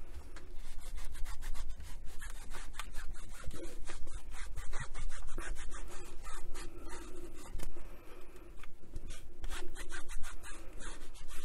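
A cloth scrubbing rapidly back and forth over the covered ends of a Roberts RIC1 radio case, wiping off grime, with a brief pause about eight seconds in.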